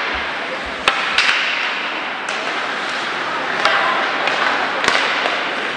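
Ice hockey play: sharp clacks of sticks and puck, about a second in and again near four and five seconds, over a steady rink din.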